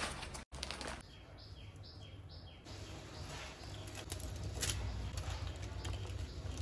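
Plastic noodle packet crinkling briefly, then a high chirp repeating about twice a second. After that comes a steady low rumble from a pot of water heating on a gas stove, with light knocks as dried flat rice noodles are lowered in and moved with tongs.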